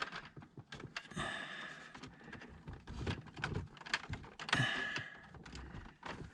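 Scattered clicks, knocks and short scraping rustles of hands working the old, seized HVAC temperature control cable loose from behind a car's dashboard.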